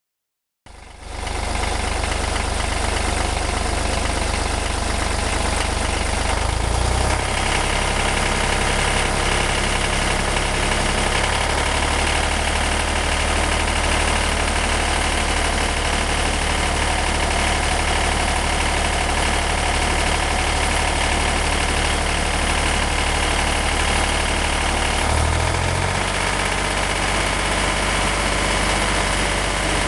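1963 Renault N70 tractor's three-cylinder engine idling steadily, its low note shifting slightly twice. The engine has three new cylinders with about 60 hours of running since.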